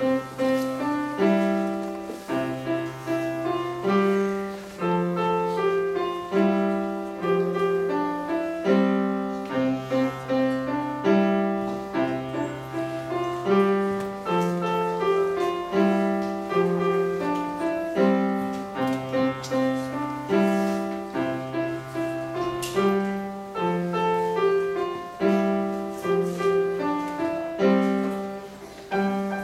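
Upright piano played solo: a simple right-hand melody of separate notes over held left-hand bass notes, at an even, moderate pace.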